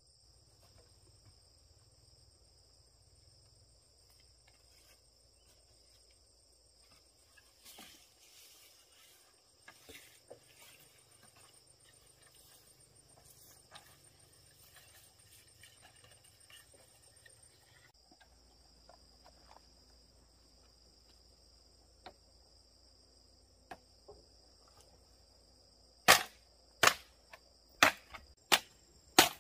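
Steady high chirring of insects, with a few faint taps in the middle. In the last few seconds a run of sharp knocks, about one every half to one second, comes in as the bamboo pole is handled on the dug earth.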